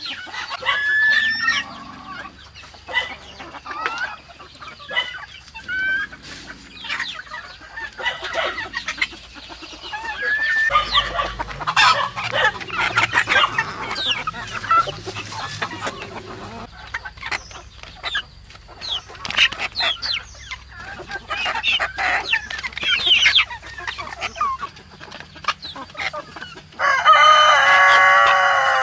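A flock of chickens clucking and chirping, with scattered short clicks. Near the end a rooster crows once, long and loud.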